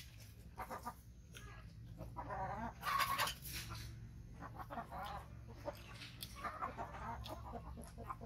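Chickens clucking, a few calls loudest about three seconds in, over a steady low hum.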